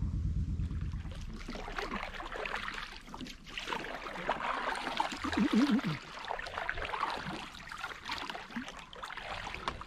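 Kayak paddle dipping and pulling through the water, with small splashes and trickling of water off the blade and along the hull. A short wavering tone comes in about halfway through.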